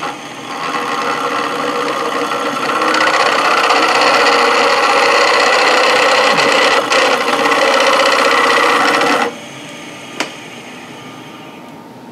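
Spiralling tool pressed against the end grain of a wood cylinder spinning on a lathe, its cutter rasping as it carves a spiral pattern. The rasp starts about half a second in, grows louder near three seconds and stops suddenly about nine seconds in. The lathe keeps running more quietly, with a single click about a second later.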